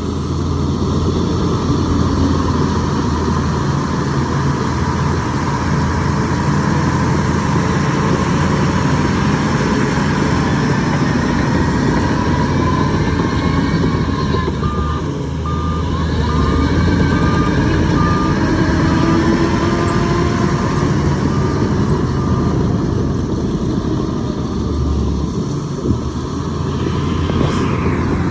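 Heavy diesel engine of construction machinery running steadily under load. About halfway through, a reversing alarm beeps about ten times at an even pace.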